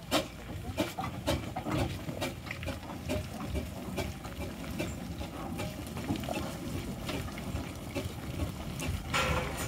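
William Foster & Co steam traction engine moving slowly: a low rumble with a run of irregular chuffs and knocks from the engine and its running gear, and a brief hiss near the end.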